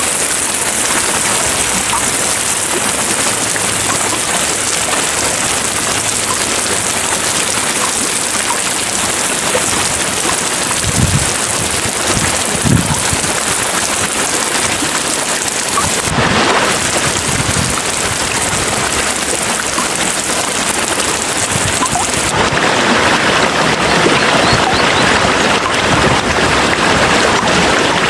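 Heavy rain falling steadily as a dense hiss, with a few short low rumbles about halfway through. The rain turns a little brighter and louder after about three quarters of the way in.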